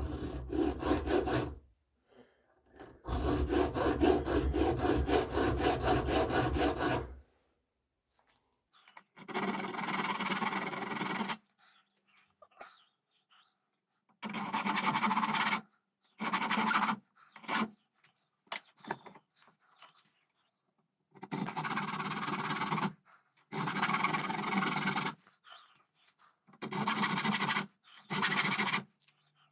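Flat hand file worked in strokes across a small metal piece clamped in a bench vise: bursts of rasping of one to four seconds with short pauses between them, the longest run of strokes starting about three seconds in.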